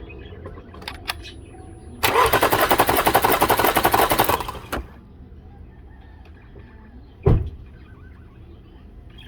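A 2016 Chevy Cruze engine cranks on its starter for about two and a half seconds in quick, even pulses without firing, during a compression test of the fourth cylinder. A short thump follows a few seconds later.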